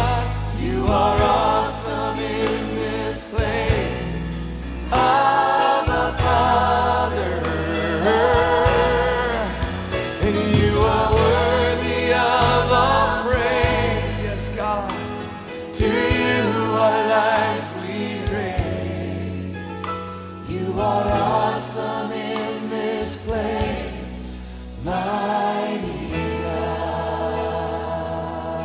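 Christian worship song: voices singing long, wavering held notes over an accompaniment with sustained bass notes.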